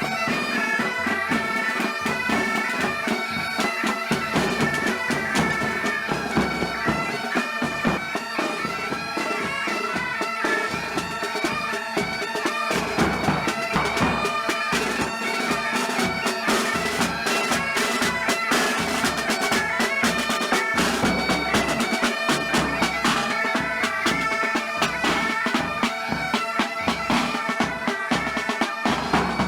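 Military pipe band playing: bagpipes sounding a melody over their steady drone, with a regular drum beat underneath.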